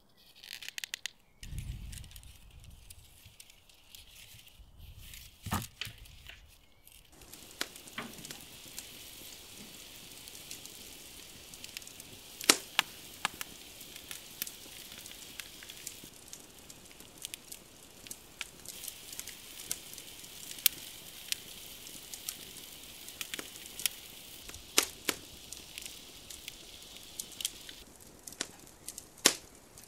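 Corn cob pieces being pushed onto wooden skewers, with a few soft knocks. Then, from about seven seconds in, the open fire under a grill crackles with a steady hiss and scattered sharp pops as corn cobs roast over it.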